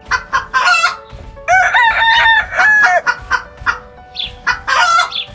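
Rooster crowing once, a long call in several held parts, with short clucking calls before and after it over faint background music.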